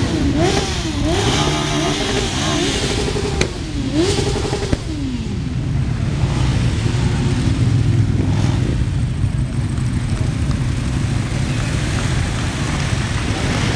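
A group of motorcycles riding slowly past. In the first five seconds engines are revved up and down several times, and after that a steady low rumble of many engines running at low speed.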